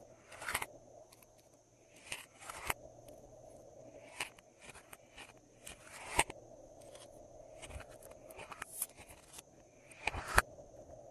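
Glossy slime being squeezed and stretched by hand, giving irregular sticky clicks and pops, a couple of them sharper and louder.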